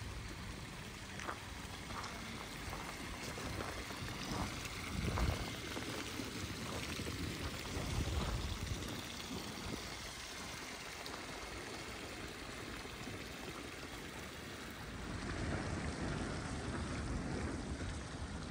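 Water pouring from a stone village fountain's spouts into its basin, a steady splashing trickle, with footsteps crunching in snow about every two-thirds of a second.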